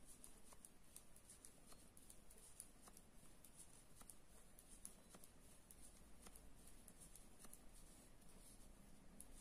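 Faint, irregular light clicks and scratching of metal circular knitting needles and yarn as garter stitches are knitted, over a low steady hiss.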